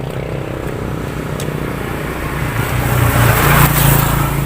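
Motor vehicle engine running steadily, growing louder about three seconds in and easing off near the end, as if passing close by.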